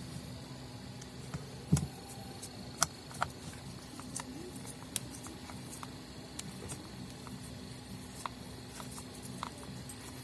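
Scattered light clicks and taps of screws and a screwdriver on the plastic housing of an electric sander being reassembled, with one dull thump a little under two seconds in and two sharper clicks soon after, over a steady low hum.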